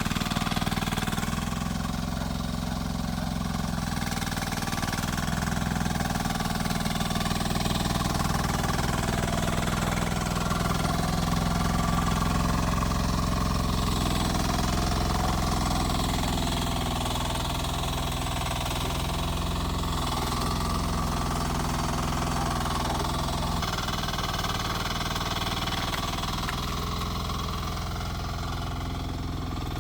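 Rippa R10 mini excavator's engine running steadily at an even speed.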